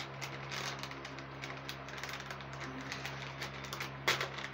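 A small packaging pouch crinkling and rustling as it is pulled open by hand: a run of light crackles, with one sharper crackle near the end.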